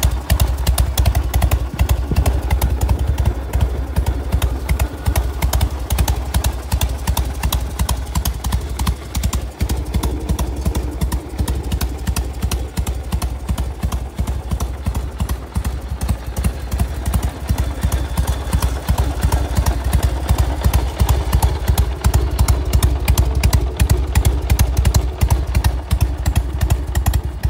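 1987 Harley-Davidson Heritage Softail's 1340 cc Evolution V-twin idling steadily, its exhaust beating in a quick, even pulse.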